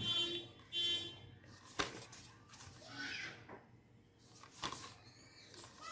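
Steelbook Blu-ray case being handled: a couple of sharp clicks and taps of the metal case, with two short high whines in the first second.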